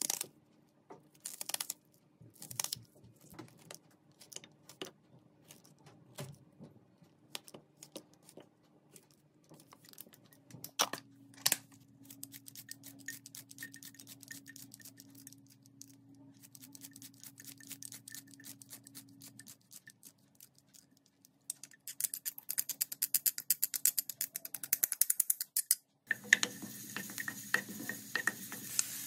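Kitchen scissors snipping through onion in separate cuts, then a scissor-type garlic mincer chopping garlic cloves with a fast run of clicking snips. About three seconds before the end, minced garlic starts sizzling in hot oil in a wok.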